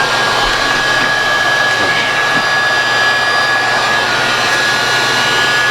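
Heat gun blowing steadily on its low setting, a steady rush of air with a high whine from its fan motor, shrinking heat-shrink tubing over soldered wire joints.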